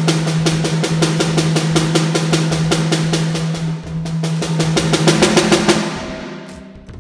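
Acoustic drum kit: a fast, even run of stick strokes on the snare drum with a steady ring beneath it. About five seconds in the playing moves to the toms, then dies away near the end.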